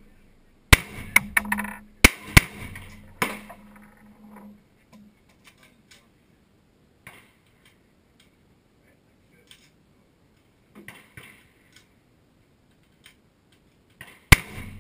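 Glock 17 Gen 4 9mm pistol firing a quick string of about six shots in the first few seconds, each a sharp crack with a short ringing tail. Faint clicks follow, then one more shot near the end.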